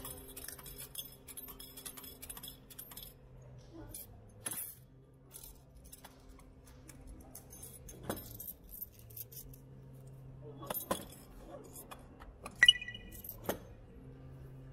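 Small metallic clinks and jingles, scattered and irregular, over a steady low hum. About twelve and a half seconds in comes one sharper metallic clink with a brief ring.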